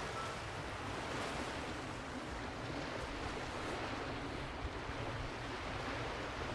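Sea surf washing on a beach, a steady rushing noise.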